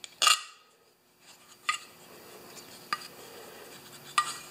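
Lawnmower's plastic air filter cover and filter being handled, giving short sharp clicks: the loudest about a quarter second in, then three lighter ones roughly a second apart.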